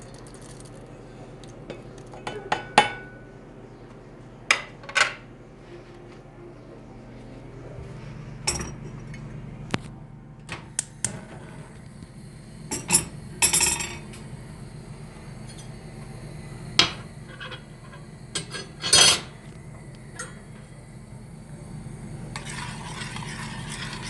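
Scattered clinks and knocks of a spoon and plate against a stainless steel pot as dry ingredients are tipped into water, over a steady low hum. Near the end, continuous scraping as the thin porridge mixture is stirred in the pot.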